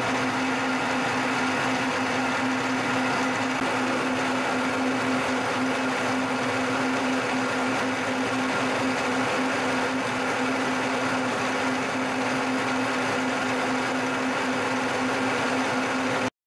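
Milling machine running with a spiral end mill cutting a slot in a metal block: a steady motor hum and whine mixed with cutting noise. It stops suddenly near the end.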